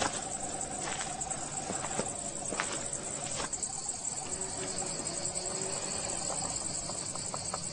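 Insects chirping in a steady, high-pitched stream, with a few sharp clicks or knocks in the first half.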